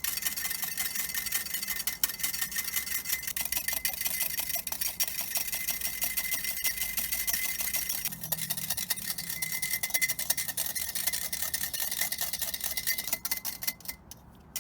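Wire whisk beating egg whites into meringue by hand, clicking fast and steadily against the bowl. It slows and stops near the end, as the meringue reaches stiff peaks.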